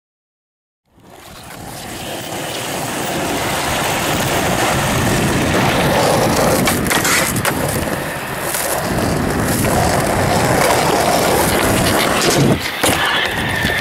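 Skateboard wheels rolling on rough concrete, a steady noisy rumble that fades in over the first few seconds, with a few sharp knocks of the board, two of them near the end.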